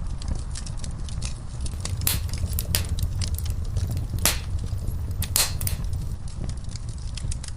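Wood fire burning in a fireplace: a steady low rumble of flames under constant small crackles, with several louder pops of embers between about two and six seconds in.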